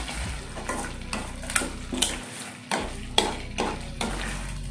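Steel spoon stirring and scraping a stainless steel kadai of green chilli paste frying in sesame oil, mixing in freshly added salt. A steady sizzle runs under sharp spoon strokes that come about twice a second.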